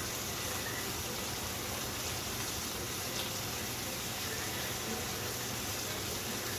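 Patty melts frying in a pan: a steady, even sizzle.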